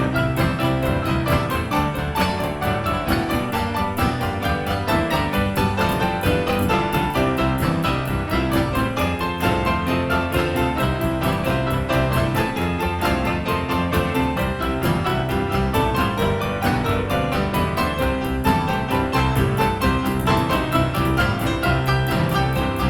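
Background music led by piano, with a quick run of notes over a steady low part.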